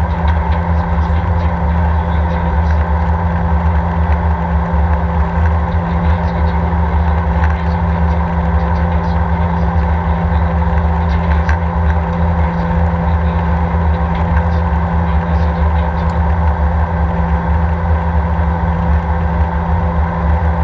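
Steady in-cabin noise of an Airbus A319 in flight: a constant low drone of the jet engines and rushing air, with a few steady hums running through it.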